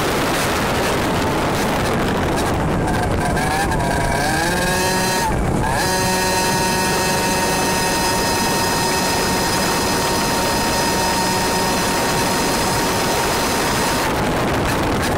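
100cc two-stroke kart engine heard from on board under heavy wind rush: its pitch climbs for a couple of seconds, falters briefly, then holds steady and high for about eight seconds before the wind noise swamps it again near the end.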